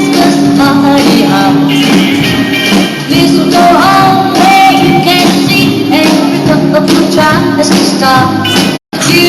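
Live band playing a song with a singer; the sound cuts out completely for an instant near the end.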